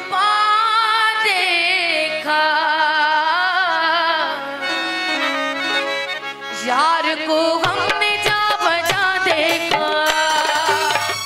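Live Sufi folk music: a woman sings a long ornamented line with heavy vibrato over a sustained harmonium. About six and a half seconds in, the tabla comes in with quick, sharp strokes under the voice and harmonium.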